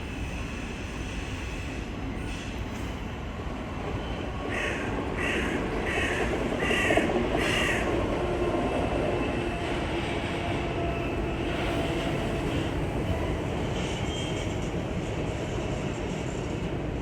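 A train running through a station, a steady rumble that grows louder about four seconds in. Five short harsh calls come in a row over the rumble, about 0.7 seconds apart.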